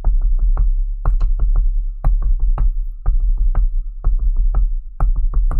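Electronic music from the TV episode: a fast repeating rhythm of sharp drum hits, about four a second, over a deep steady bass.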